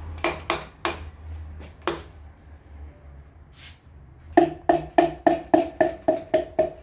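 A piston being tapped down into a Toyota 2JZ cylinder bore through a ring compressor band. A few scattered knocks come first, then from about halfway a steady run of light taps, about four a second, each with a short ringing tone.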